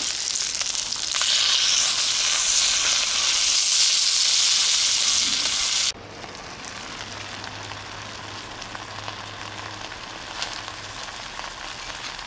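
Chicken drumettes sizzling loudly in oil in a cast-iron pan. About halfway through the sound cuts to a much quieter, steady hiss with scattered faint crackles.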